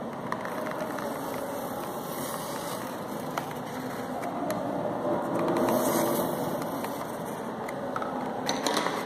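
A pencil scratching on paper as it traces around an upturned thermocol bowl, over a steady background hiss, a little louder around the middle.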